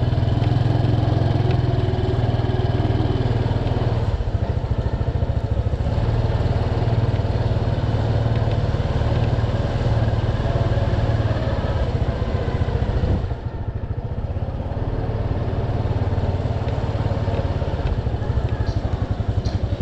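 Motorbike engine running steadily under way, with road and wind noise; the sound drops briefly a little past halfway, then picks up again.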